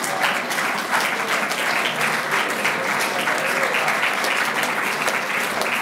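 Audience applauding steadily, many hands clapping at once, after a ceremonial cake-cutting.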